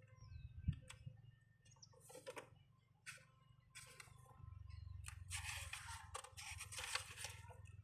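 Faint rustling and flicking of paper pages as an owner's manual is leafed through, with a few small clicks and a longer stretch of rustling in the second half.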